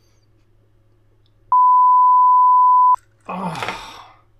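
Censor bleep: a loud, steady beep of one pitch, about a second and a half long, dubbed over the audio to cover a swear word. Just after it comes a man's short, loud, exasperated vocal outburst.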